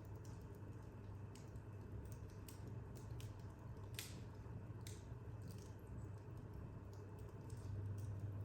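Wood fire crackling in an open corner fireplace: scattered sharp pops and snaps, the loudest about four seconds in, over a low steady hum.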